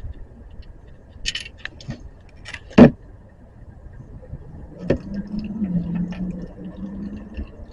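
Metallic clinks and knocks of a socket wrench working the oil drain plug loose under a car, with one sharp, loud knock about three seconds in. A faint low steady hum follows in the second half.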